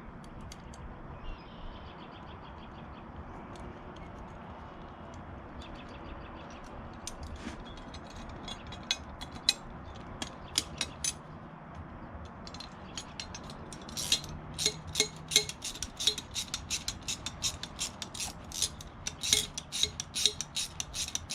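Socket ratchet clicking in quick runs as nuts are run down with a 9mm socket; scattered at first, the clicks come denser and louder in the second half.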